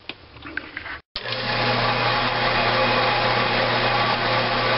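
A 4x6 metal-cutting bandsaw, set up vertically, running steadily with a constant low motor hum and blade whir. It starts abruptly about a second in, after a few faint clicks.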